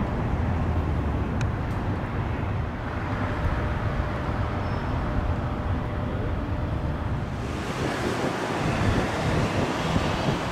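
Wind buffeting the microphone over a steady outdoor rumble, with a brighter hiss setting in about seven seconds in.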